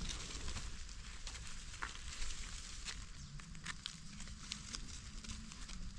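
Faint crackling and rustling of forest leaf litter and undergrowth, with scattered small clicks over a soft low rumble.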